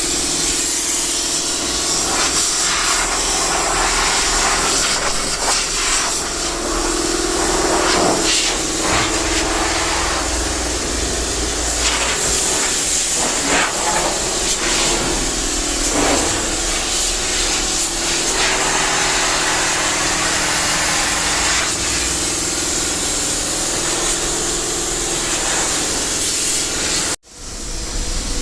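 Steady loud hissing noise, like compressed air or spraying, with a few short scraping strokes. It cuts off abruptly near the end, then resumes.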